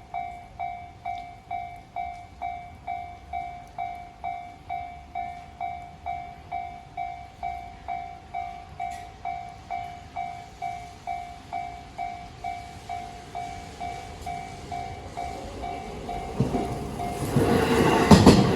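Japanese level-crossing warning bell ringing steadily, an electronic ding at about two strikes a second. In the last two seconds a JR Saikyo Line train arrives and passes over the crossing, loud wheel-on-rail noise with sharp knocks over the rail joints taking over.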